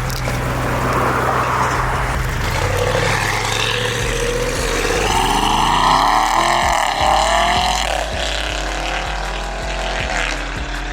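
Audi RS6's 4.0 TFSI twin-turbo V8 with aftermarket downpipes and a full exhaust accelerating hard under a Stage 2 tune. The engine note climbs in pitch, then sweeps down in pitch and eases off over the second half.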